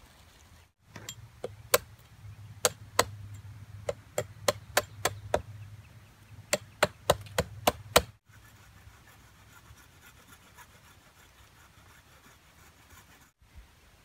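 A hatchet head striking a flat-cut wooden log round set on a stump: about twenty sharp wooden knocks in irregular runs over some seven seconds, then only faint background for the rest.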